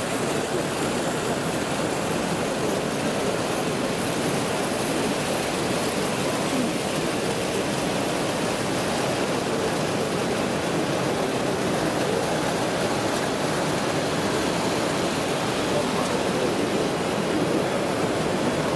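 Steady hubbub of a large, crowded exhibition hall, mixed with vintage O gauge three-rail tinplate model trains running on their track.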